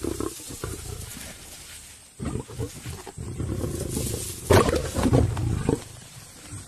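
Lions growling in a fight over a kill: the dominant male warning the rest of the pride off the carcass. It comes in rough bursts, the loudest about two-thirds of the way through.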